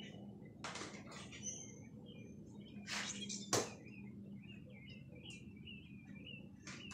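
A few sharp knocks and clacks as clamps and bracing are worked off a wooden frame, the loudest about halfway through. In the second half a bird chirps a quick repeated note, about three a second.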